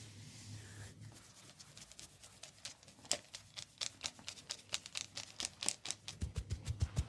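Hands patting and tapping a head in quick rhythm during a head massage: sharp pats about five a second, growing louder. Deeper thumping strokes join near the end.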